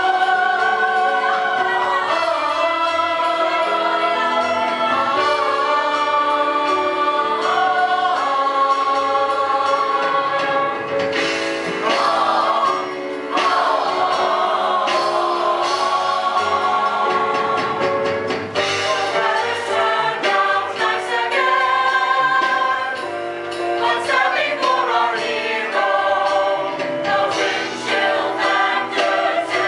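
A choir of singers performing a musical-theatre song, with musical accompaniment.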